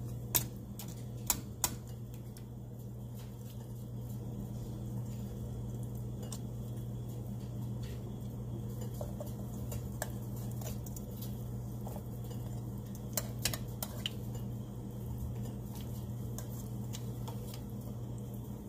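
Metal tongs clinking against a glass baking dish as beef short ribs are turned over: a few sharp clicks, some in quick pairs, over a steady low hum.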